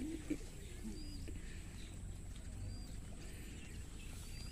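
Open-air field ambience: a steady low rumble with a faint, short, high bird chirp three times, about a second and a half apart.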